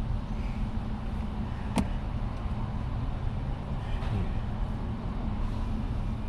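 Vehicle engine running with a steady low rumble, with a single sharp click about two seconds in.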